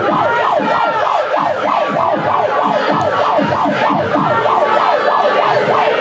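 A siren in fast yelp mode, its pitch sweeping up and down about two to three times a second without a break.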